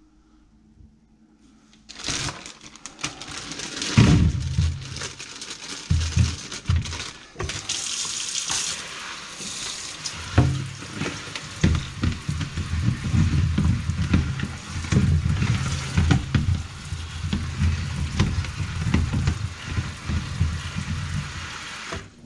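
Kitchen tap running into a stainless steel sink while green tomatoes are rinsed in a plastic colander. Many dull knocks come from the tomatoes and colander as they are handled. The water comes on about two seconds in and stops near the end.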